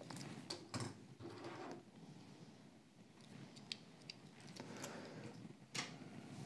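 Die-cast toy car handled in the fingers and set down on a mat: faint scattered clicks and light taps, with a sharper click a little before the end.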